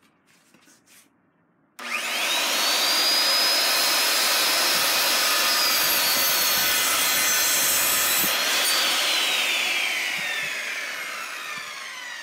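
Handheld electric circular saw switched on about two seconds in, whining up to speed and cutting through a wooden board under load. Near nine seconds the blade clears the wood and the pitch rises briefly, then the motor is released and winds down with a falling whine.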